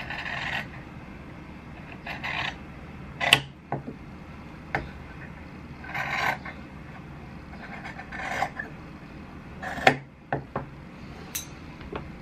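Scissors cutting through fabric in a few short snips spaced a couple of seconds apart, with sharp clicks in between.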